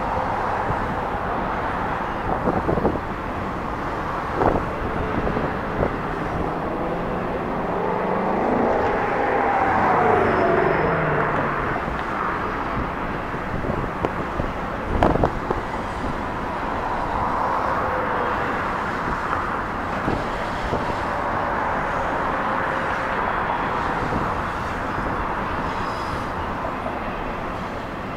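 Double-stack container train cars rolling over a railway bridge: a steady rumble of steel wheels on rail, with a few sharp clanks and, for a few seconds in the middle, a faint wavering squeal.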